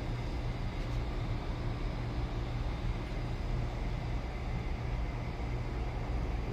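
Steady low background rumble and hum with no distinct events, of the kind distant traffic or a running air-conditioner makes.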